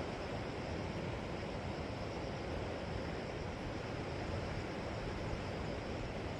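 Steady sea sound at the shore: waves washing in a continuous even rush with no single breaks standing out, mixed with wind noise.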